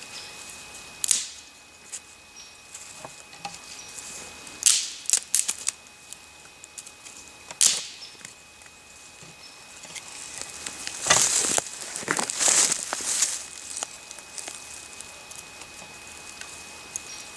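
Small dry sticks and twigs snapping and crackling as they are broken and handled for kindling, in scattered bursts with a longer run of crackling about 11 to 13 seconds in.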